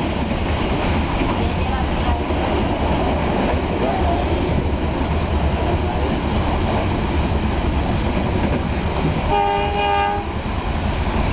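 Passenger train running at speed, heard from inside the carriage: a steady rumble with scattered clicks of the wheels over rail joints. About nine seconds in, a train horn sounds once for about a second.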